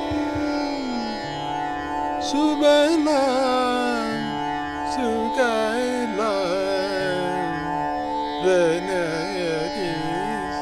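A man singing an Indian classical-style melody in ornamented phrases, with gliding and wavering notes over a steady drone.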